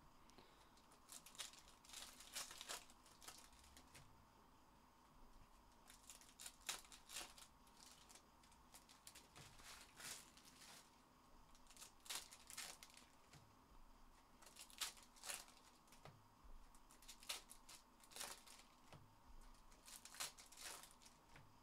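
Faint, intermittent crinkling and rustling as basketball trading-card pack wrappers and cards are handled, in short scrapes every second or so.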